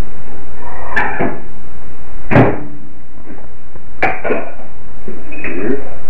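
Four sharp knocks and clatters, the loudest about two seconds in, as a microwave oven door is opened and a plate of food is taken out and handled on a counter. They are heard through a security camera's microphone over a steady hiss.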